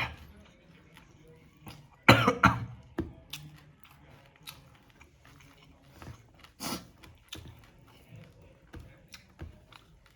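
A person coughing in a short run of three or four quick bursts about two seconds in, with a smaller burst a few seconds later and faint eating clicks between.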